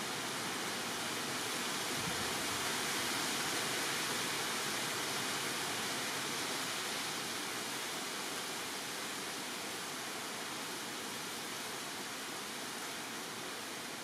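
Steady, even rushing hiss with no bird calls or other distinct sounds, swelling slightly in the first few seconds and easing off a little toward the end.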